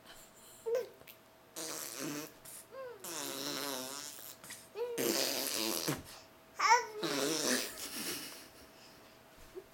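A baby blowing raspberries: wet, buzzing lip fart noises made with the voice, in several stretches mixed with babbling squeals.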